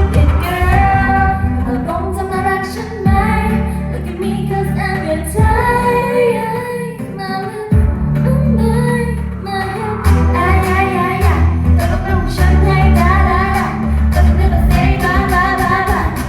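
Pop song with a female voice singing over a strong, pulsing bass line.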